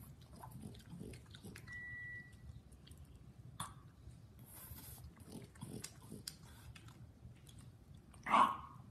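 French bulldog chewing a soft white-bread sandwich held in its paws: a run of small, irregular mouth clicks. A brief faint beep comes about two seconds in, and a short, louder sound near the end.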